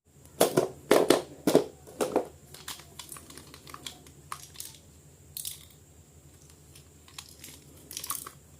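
Plastic toy packaging being handled and crinkled, with four loud crackles in the first two seconds, then scattered smaller clicks and rustles.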